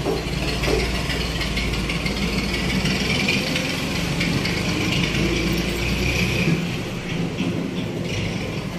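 A steady low mechanical hum, like a running engine or motor, whose deepest part drops away about two-thirds of the way through, with faint metal clinks of steel crankshaft parts being handled.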